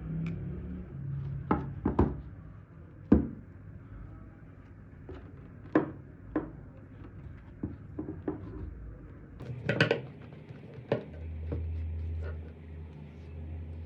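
Metal hand tools being handled: irregular clicks and light knocks, about a dozen spread over the stretch, the sharpest about three seconds in and a quick cluster near ten seconds, over a low steady hum.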